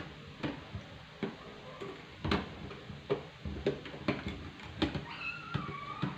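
A spoon stirring lemonade, clinking against the side of the container in irregular taps about every half second. Near the end a short, high, wavering tone sounds over the clinks.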